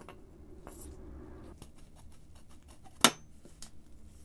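Small metallic clicks and scrapes as a rusty steel mounting strap is slid and flexed off a brass fuel tank, with one sharp clack about three seconds in.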